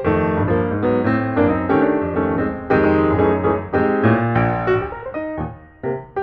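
Background music led by a piano, a quick run of struck notes over a steady bass line. It thins out briefly about five seconds in, then a few notes pick up again near the end.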